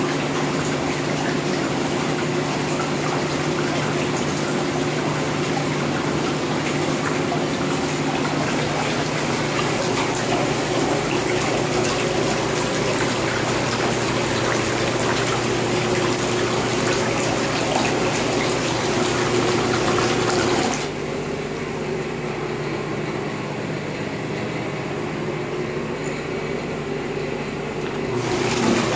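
Jacuzzi whirlpool tub running, its jets churning the water with a steady pump-motor hum under the rushing water. About three-quarters of the way through, the rushing drops suddenly to a quieter, duller churn, then near the end it surges back up as the round air-switch button on the tub rim is pressed.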